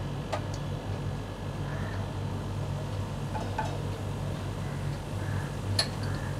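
Cumin seeds sizzling in hot oil in a kadhai for a tempering, with a few faint pops, over a steady low hum.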